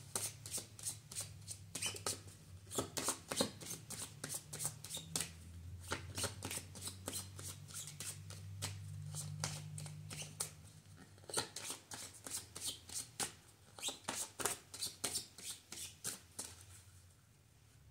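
Tarot cards being shuffled by hand: a quick run of short papery slaps and riffles, several a second, dying away near the end.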